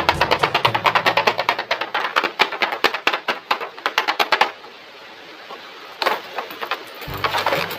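Background music with a rapid run of sharp clicks, about eight a second, for the first four and a half seconds, then a short lull before the music's bass comes back near the end.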